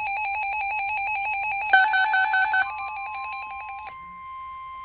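Weather alert tones. A fast-pulsing electronic alert trill sounds, and a second, higher pulsing tone joins it briefly around the middle. About four seconds in, the trill gives way to a steady single alarm tone, the NOAA Weather Radio warning alarm that comes before a severe thunderstorm warning is read.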